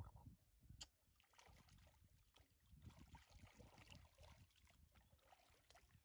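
Faint sloshing and splashing of water around a person standing chest-deep, with small splashes as hands move a baby monkey at the surface.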